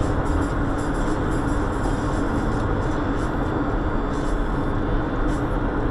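Steady road noise inside a moving car: tyre rumble and engine drone with a constant low hum, unchanging throughout.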